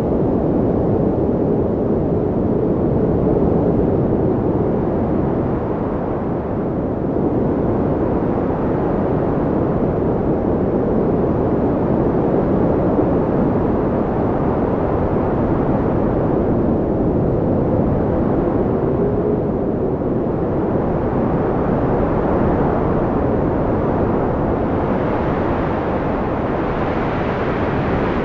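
5-inch FPV quadcopter's Xing 2207 1800kv brushless motors and propellers running in flight, a steady buzzing whir whose pitch wavers up and down with throttle, mixed with rushing wind noise.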